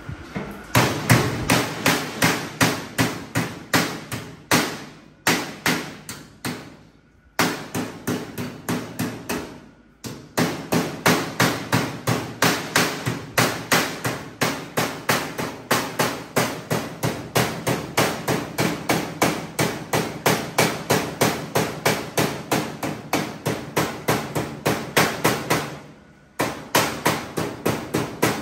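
A hammer striking steel over and over, about three blows a second, in runs broken by short pauses about seven and ten seconds in and near the end.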